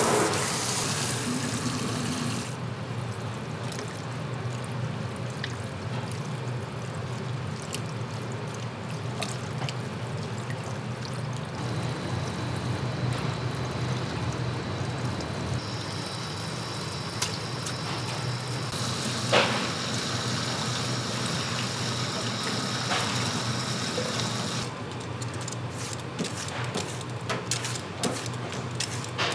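Kitchen work sounds: water flowing, with scattered small clinks and knocks and one sharper knock about two-thirds of the way through, over a steady low hum.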